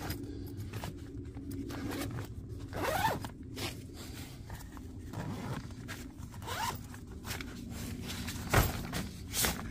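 Zipper on a fabric carry bag being pulled open in a series of short, scratchy runs as the zip is worked around the bag, with two louder knocks near the end.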